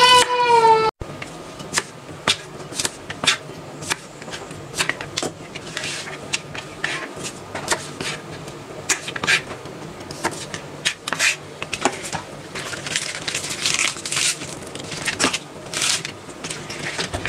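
Kitchen knife slicing garlic cloves and ginger, then spring onions, on a plastic cutting board: irregular taps of the blade striking the board, several a second.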